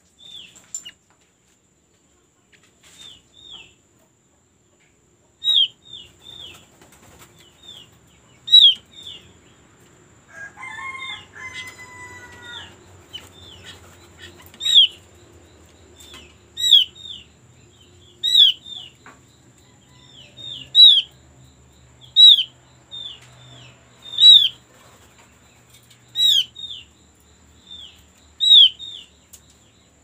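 Opyor songbird calling: short, high, downward-slurred whistles repeated in twos and threes about every two seconds, the kind of call used as a lure to set other opyor birds singing. About ten seconds in, a rooster crows once, fainter, beneath the whistles.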